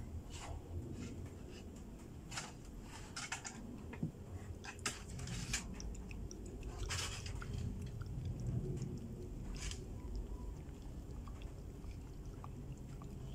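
A dog licking and nibbling at its itchy, sore front paw: irregular wet mouth smacks and clicks. The itch comes from skin wounds that are probably infected.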